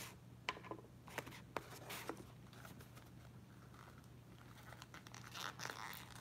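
Faint tearing and crinkling of packaging, with scattered small clicks, as a small blind box of mystery pins is opened by hand. A longer burst of crinkling comes about five seconds in.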